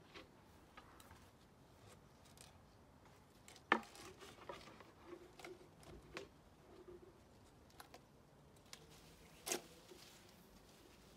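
Homemade pole fruit picker, a cut plastic water bottle on a long pole, working among the branches of a fruit tree: faint rustling and small clicks of leaves, twigs and plastic. Two sharper clicks stand out, about four seconds in and again near nine and a half seconds.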